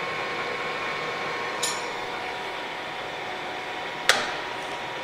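Clausing Colchester 15x50 gap bed engine lathe running under power feed, a steady mechanical hum with a few steady whining tones from its gearing. Two brief clicks, about a second and a half in and again near four seconds.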